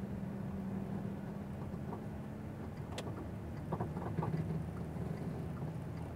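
Cabin drone of a Volkswagen Touareg 3.0 TDI V6 diesel driving slowly while towing a long caravan, a steady low hum over road noise whose pitch drops a little about halfway. A sharp click about three seconds in and a few light knocks just after.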